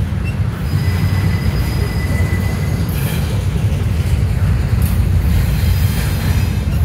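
Double-stack intermodal container train passing close by, with a steady heavy rumble of wheels on rail. A thin high wheel squeal sounds over it for a couple of seconds near the start.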